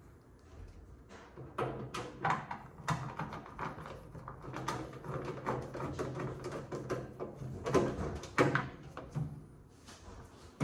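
Irregular clicks, knocks and rattles of hands working on a microwave oven, over a low steady hum.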